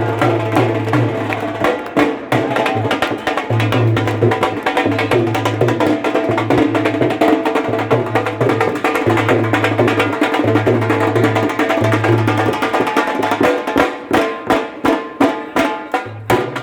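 Loud music with a heavy pulsing bass and fast percussion. Near the end it thins to sharp drum strikes, about three a second, then stops.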